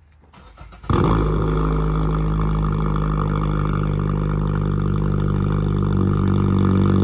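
Loud, steady electronic alert tone from a NOAA Weather Radio broadcast, several low pitches held together as one drone, starting about a second in.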